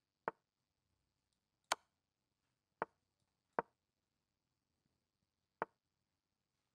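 Five short, sharp clicks, unevenly spaced, as moves are played in an online chess game.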